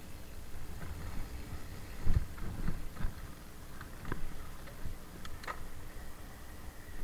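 Mountain bike riding down dirt singletrack: a steady low rumble of tyres and wind on the microphone, with several sharp knocks and rattles from the bike over bumps, the loudest about two seconds in, and a few lighter ticks later on.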